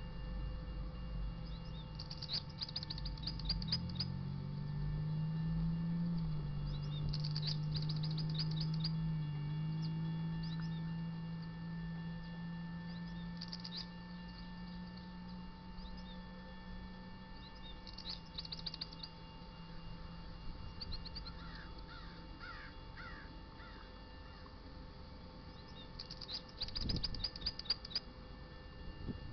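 Railroad crossing warning bell ringing steadily while the gates lower for an approaching train, with a low engine hum swelling through the first half and birds chirping in short bursts every few seconds.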